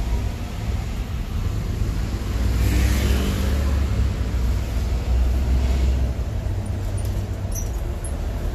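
Bus engine and road noise heard from inside a moving bus: a steady low rumble, with a rush of noise that swells and fades about three seconds in.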